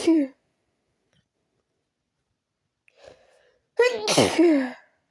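A woman sneezing in a fit brought on by chhinkni sneezing powder: the falling end of one loud sneeze right at the start, a faint in-breath about three seconds in, then a second loud sneeze lasting about a second.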